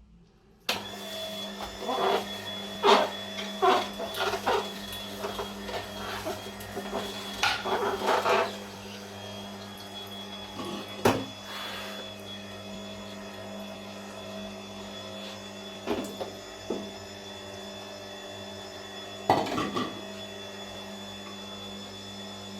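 Nutrilovers Green-Press horizontal slow juicer switched on about a second in and running with a steady motor hum. Irregular sharp cracks and knocks come over it, many in the first eight seconds and a few later.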